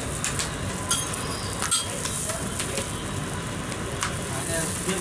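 Parathas sizzling on a large flat griddle, with a couple of sharp clicks from a metal spatula striking the griddle about one and two seconds in.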